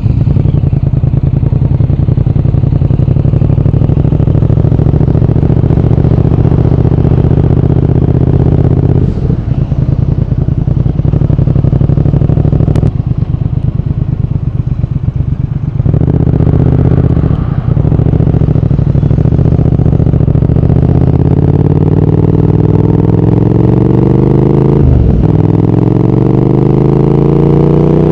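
Triumph Speed Twin 1200's 1200 cc parallel-twin engine and exhaust under way, holding steady revs and easing off briefly in the middle. In the second half it pulls harder, rising in pitch with short breaks at the gear changes, one of them near the end.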